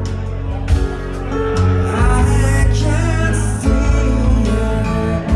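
A band playing live, with loud sustained bass notes, sharp drum and cymbal hits, and singing.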